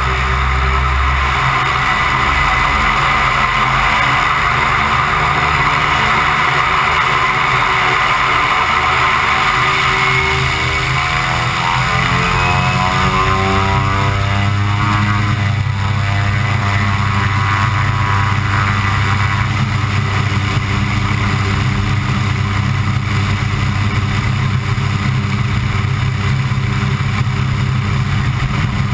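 Pilatus PC-6 Turbo Porter's turboprop engine and propeller running at low power while the aircraft taxis on the ground, heard close up from outside the fuselage. The drone is loud and steady, and its tone shifts briefly around the middle.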